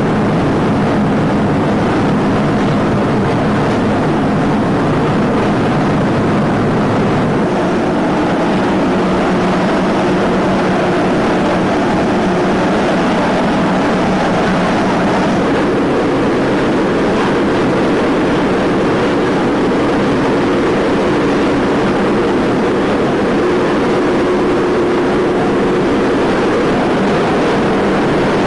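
Propane burner flames giving a loud, steady rushing noise, with a faint low hum underneath that changes pitch about a quarter of the way through. The burners are heating sheet glass for thermoforming.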